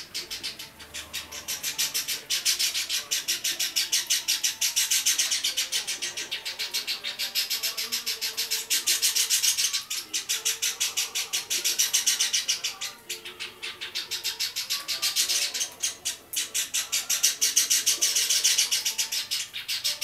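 Java sparrow chick about a month old calling, a rapid run of high, scratchy chirps repeated many times a second, typical of a chick begging to be fed. The calling comes in long bouts with brief pauses about ten, thirteen and sixteen seconds in.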